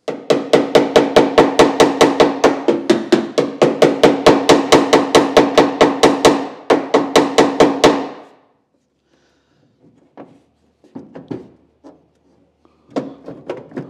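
Hammer beating rapidly on the MGA's body panel, about four blows a second with a ringing note, while a hydraulic ram holds the dent under pressure to push it out. The hammering stops about eight seconds in, followed by a few lighter knocks.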